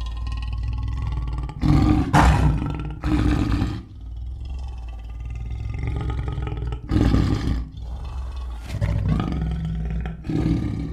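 A large animal roaring and growling: a low, continuous rumble with about five louder roars rising out of it.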